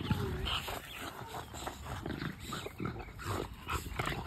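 A dog close by making short, irregular noises, with scuffing and rustling around it.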